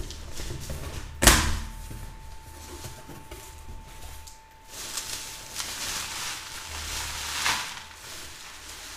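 Cardboard shipping box being opened by hand, with a sharp knock about a second in. Crinkling of plastic bubble wrap being pulled out of the box follows later, twice.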